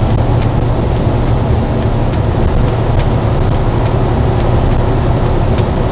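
Steady low drone of a truck's engine and road noise, heard inside the cab while driving, with light irregular ticks scattered through it.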